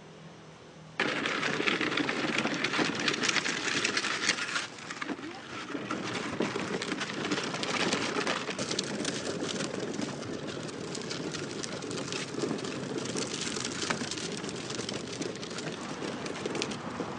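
Rain falling, a dense steady patter that starts abruptly about a second in, loudest for the first few seconds and then settling a little lower.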